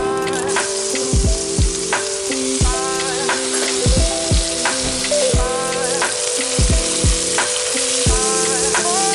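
Food frying in oil in a nonstick skillet, a steady sizzle: salmon fillets, then chopped onion and garlic, with a spatula stirring in sun-dried tomatoes near the end. Background music with a steady beat plays over it.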